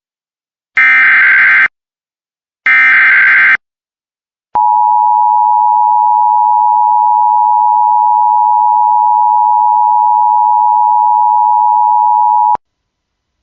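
Emergency Alert System SAME header: two identical screeching digital data bursts about a second long, then the steady two-tone EAS attention signal, held for about eight seconds and cut off sharply. Together they announce an emergency alert, here a special marine warning.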